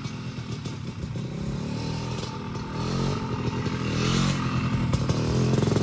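Three-wheeler (ATC) engine running as it is ridden, getting louder from about three seconds in as it comes closer.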